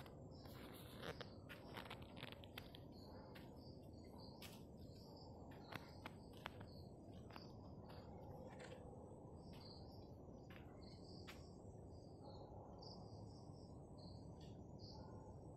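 Faint night ambience of insects chirping steadily at a high pitch, a few short chirps a second, over a low background hum. Scattered sharp clicks fall in the first half.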